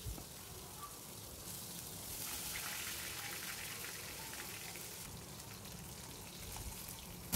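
Two pieces of chital fish shallow-frying in hot mustard oil in a wok: a soft, steady sizzle and crackle of oil, a little louder in the middle.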